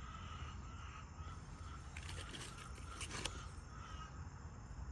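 Outdoor garden ambience: a bird repeating short calls at one pitch, insects chirring steadily underneath, and two brief rustles about two and three seconds in.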